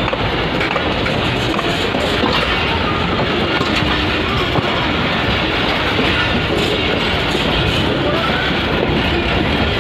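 Running noise of a moving passenger train heard from an open coach doorway: a steady rumble of the wheels on the track, with a small knock about four and a half seconds in.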